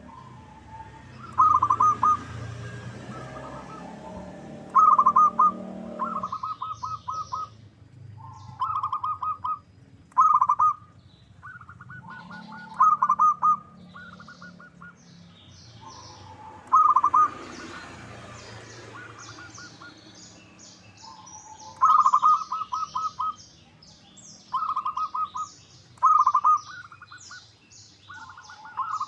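Zebra dove (perkutut) calling: repeated short bursts of quick staccato cooing notes, a burst every one to three seconds. High, thin chirps of other small birds join in from about the middle on.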